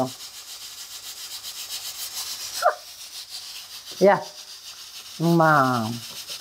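A wooden spoon stirs scrambled egg into a steel pot of lettuce sour soup on the stove, over a steady high hiss with a fine crackle from the hot pot.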